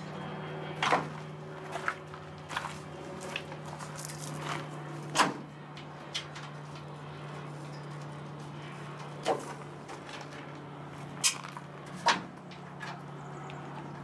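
Irregular light clicks and knocks, about a dozen, the loudest about five seconds in, from hands starting the small nuts on the ends of a pickup's tailgate panel. A steady low hum runs underneath.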